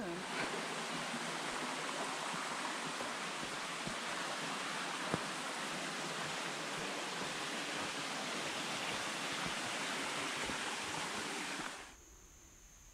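Creek water running over rocks, a steady even rush that cuts off suddenly near the end.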